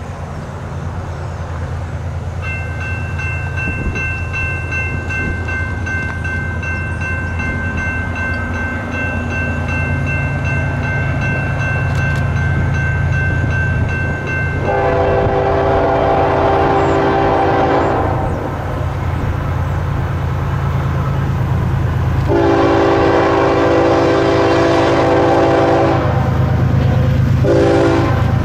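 A grade-crossing bell starts ringing about two seconds in as the gates come down, over the low, growing rumble of approaching GE diesel freight locomotives. About halfway through, the lead ES44AC's five-chime Nathan K5HL horn blows the crossing signal: two long blasts, then a short one near the end.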